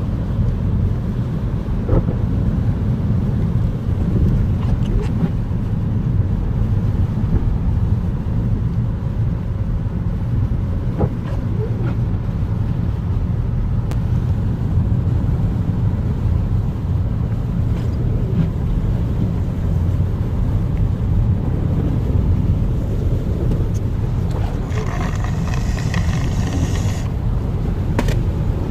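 Steady low road rumble inside a moving car's cabin: engine and tyre noise on a snowy highway. A few faint clicks can be heard, and a brief higher hiss lasts about two seconds near the end.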